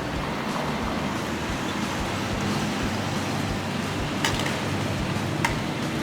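Steady street traffic noise, with two short sharp clicks about four seconds in and a second later.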